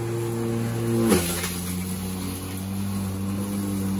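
Greenworks 20-inch 12-amp corded electric lawnmower running with a steady motor hum. About a second in, a brief burst of noise comes and the hum drops to a lower pitch, then holds steady.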